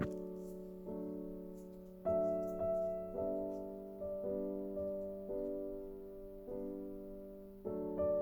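Background piano music: slow chords struck about once a second, each ringing out and fading.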